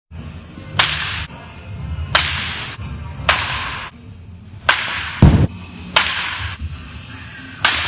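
Baseball bat hitting balls six times in a steady rhythm, one sharp crack every second and a quarter or so, each trailing off briefly; a heavy low thump about five seconds in.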